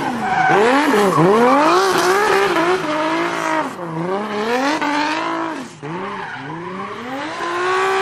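BMW drift car's engine revving up and down over and over as it slides, with tyres squealing and skidding. The revs dip briefly twice, then climb steadily near the end.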